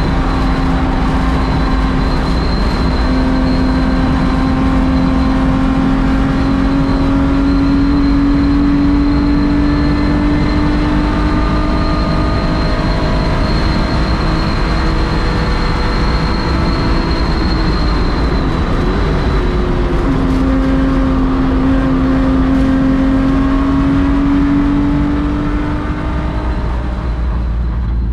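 Air-cooled 3.4-litre flat-six of a 1986 Porsche 911 race car, heard from inside the cockpit at high speed under load. The engine note climbs slowly for a long stretch, drops about nineteen seconds in, then climbs again before easing off briefly near the end, over steady wind and road noise.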